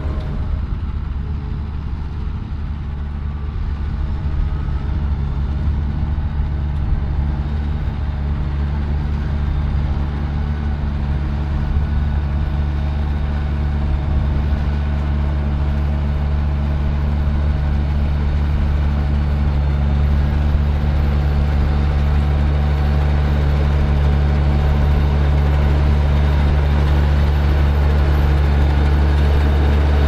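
Fendt 820 Vario tractor's diesel engine running steadily as it pulls a two-row Ropa Keiler II L potato harvester, the sound slowly growing louder.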